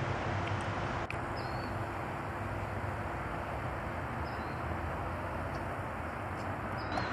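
Outdoor ambience: a steady hum of distant traffic, with a small bird giving a short chirp three times. A single sharp click about a second in.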